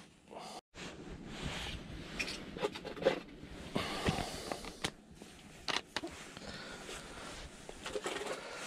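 Rustling and handling noise from heavy winter jackets and gear moving close to the microphone, with a few soft clicks and knocks scattered through it.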